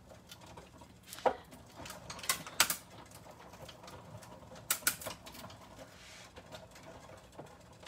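Hand-cranked Sizzix die-cutting machine drawing a sandwich of cutting pads, die and mat board through its rollers: scattered sharp clicks and cracks, a cluster about two and a half seconds in and another near five seconds.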